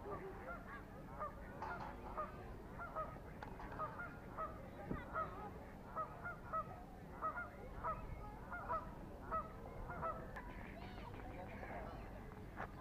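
Geese honking in a steady series, about two short honks a second, dying away near the end.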